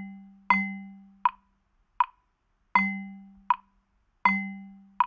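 Metronome ticking at about 80 beats per minute, one short click roughly every three-quarters of a second. On the note beats a louder, low, ringing drum-like hit sounds with the tick. On the rest beats there is only the tick, so the pattern plays a quarter-note and quarter-rest rhythm.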